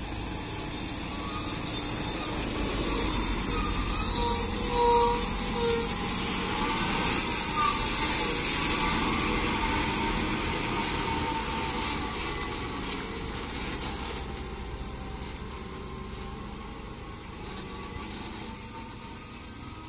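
A heavily loaded lorry passes close by with its brakes squealing in shrill high tones, loudest about seven to eight seconds in. The squeal stops about nine seconds in, and the engine and tyre noise fades as the lorry drives away.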